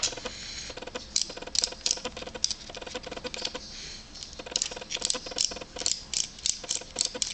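Stripped swashplate servo of a Blitz RCWorks Rogue 500 RC helicopter, its gears giving rapid, irregular clicks as the servo is worked, with a brief lull about four seconds in. The clicking is the sign of stripped servo gear teeth.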